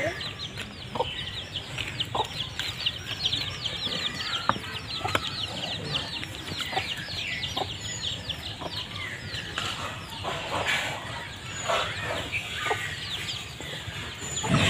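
Chickens peeping and clucking: a dense run of short, high, falling chirps, several a second, thinning out after about ten seconds, with a few scattered sharp clicks.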